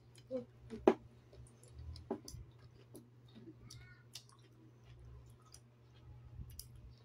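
Close-up eating sounds of sea grapes (lato seaweed): scattered small clicks as the beads are chewed and picked by hand. The sharpest click comes about a second in.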